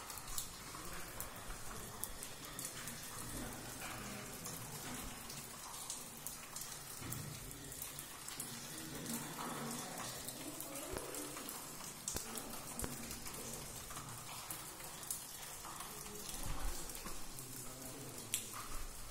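Water drops pattering in a wet cave, many small irregular taps over a steady hiss.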